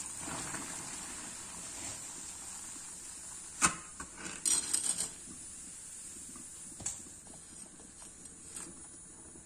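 Water at a rolling boil bubbling in a stainless steel pot, with one sharp click about three and a half seconds in and a quick rattle of clicks just after as a bundle of dry spaghetti goes into the pot, and one more click a few seconds later.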